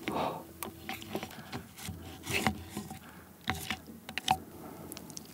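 Metal tongs and wooden chopsticks clicking and scraping against king crab leg shells in a ceramic bowl of ramen broth, a scatter of short clicks with light wet scraping.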